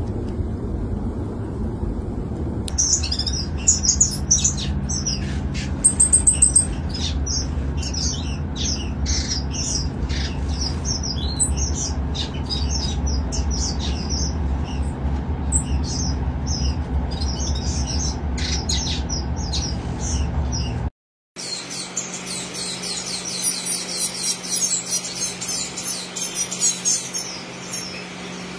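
A flock of aviary finches chirping, many short high chirps overlapping, over a steady low rumble. About three quarters through, the sound cuts out for a moment, then the chirping resumes denser and busier without the rumble.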